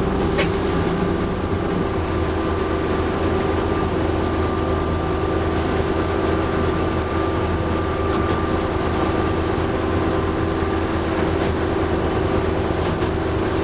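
D.145 diesel locomotive's engine running steadily, heard inside the cab as a low drone with a steady higher whine on top. A few light clicks come in the last few seconds.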